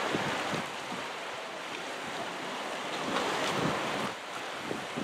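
Small sea waves washing onto the beach and around the rocks at the water's edge, swelling near the start and again about three seconds in, with wind gusting on the microphone.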